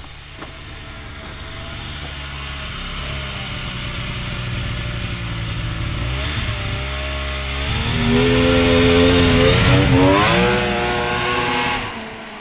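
Polaris XLT 600 snowmobile's three-cylinder two-stroke engine running as the sled rides closer, growing steadily louder, its pitch dipping and rising twice with the throttle. It is loudest for the last few seconds, then drops off sharply near the end as it passes.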